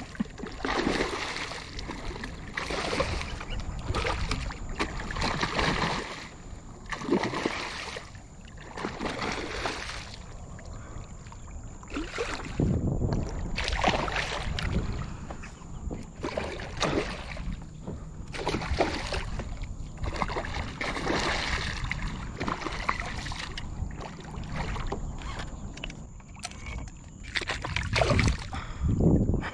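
Hooked redfish thrashing at the water's surface while it is fought and reeled in to a kayak: repeated irregular splashes.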